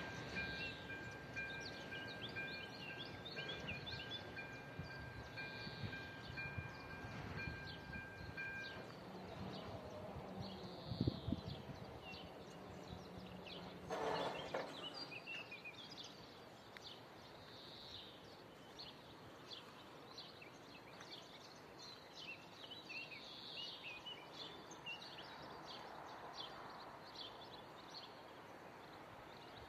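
Level-crossing electronic warning bell ringing in two steady high tones, cutting off about nine seconds in. Small birds chirp throughout, with a short knock about eleven seconds in and a brief burst of noise around fourteen seconds.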